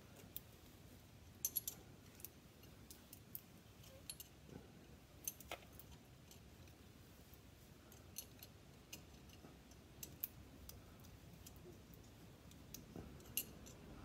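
Faint, scattered light metallic clicks and clinks, some in quick little clusters, from hand work tightening the bolts of a clamp plate on a car's driveshaft.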